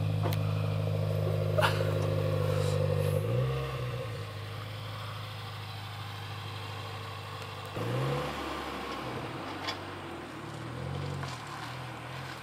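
Subaru WRX's flat-four engine idling through a new aftermarket exhaust with a steady low note. About three seconds in the note changes as the car pulls away, and it grows quieter as the car drives off, with a brief rise in revs about eight seconds in.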